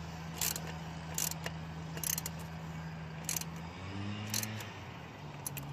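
Light clicks and rattles of car intake parts being handled, over a steady low hum that changes pitch about four seconds in.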